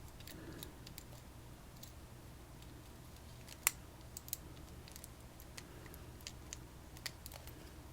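Faint, scattered small clicks and taps of a dimple lock and its picking tools being handled, with one sharper click about a third of the way in, over a low steady hum.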